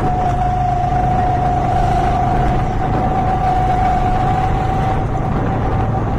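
Go-kart's small engine running at a steady, almost constant speed around the track, heard from on board: a low rumble with a steady high whine on top that sags very slightly.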